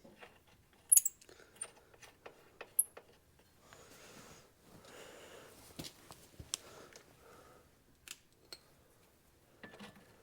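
Light metallic clinks and handling noises of nuts, bolts and hand tools being picked up and fitted, with two sharper clinks about one and three seconds in and a soft rustle in the middle.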